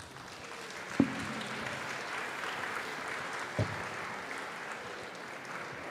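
Audience applauding, with two dull thumps, one about a second in and a louder-than-the-clapping one a little past halfway, the first being the loudest.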